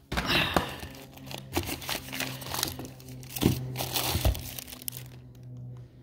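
Clear plastic parts bags crinkling and rustling as a hand rummages through a cardboard box of bagged bearings and seals, with a couple of dull knocks about three and a half and four seconds in.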